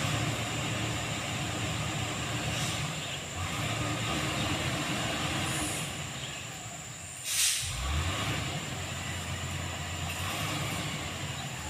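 Motor grader's diesel engine running steadily as it works a dirt road, with a short, louder burst of noise about seven and a half seconds in.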